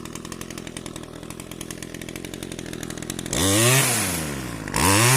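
Two-stroke petrol pole saw engine idling, then revved hard twice near the end, each rev rising fast and dropping back. It runs cleanly and picks up strongly on a newly fitted replacement carburetor, which cured its hard starting.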